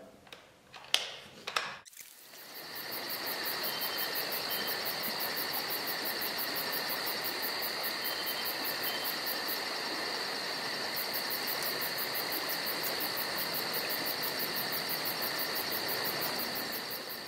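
A few sharp clicks of a rifle being handled, then a steady chorus of crickets and other insects with a fast, high pulsing trill over it, fading out near the end.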